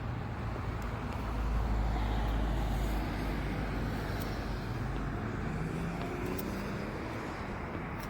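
Road traffic noise: a steady outdoor hum of vehicles with a low rumble that swells about a second and a half in and then fades, as of a vehicle passing.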